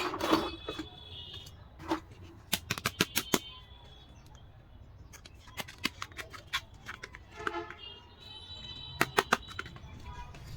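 Quick runs of small, sharp clicks and taps from plastic toy dollhouse pieces being handled, with pitched music-like tones coming and going.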